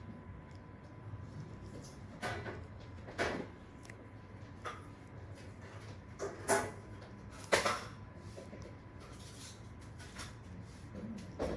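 A few short knocks and clicks, about four in all, the loudest two past the middle, over a steady low room noise with a faint steady tone.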